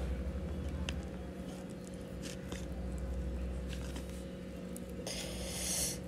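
Soft squishing and faint clicks of fingers handling boiled sweet potato pieces in a plastic bowl, over a steady low hum. A short loud hiss comes about five seconds in.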